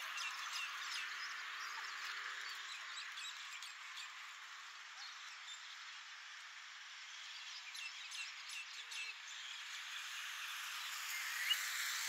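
Scattered short bird chirps over a steady hiss of road traffic, the traffic noise swelling near the end as a car approaches.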